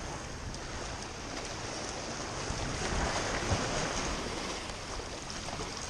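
Waves washing and breaking against jetty rocks, with wind buffeting the microphone; the wash swells louder about three seconds in, then eases.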